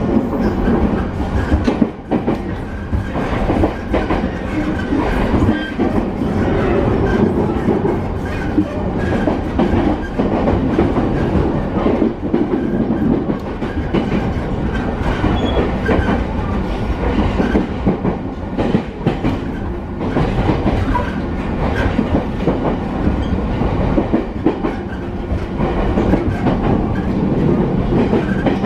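Interior running noise of a JR East E217 series electric multiple unit motor car with Mitsubishi IGBT-VVVF drive, moving at speed: a steady rumble of wheels and bogies, with the wheels clacking over rail joints.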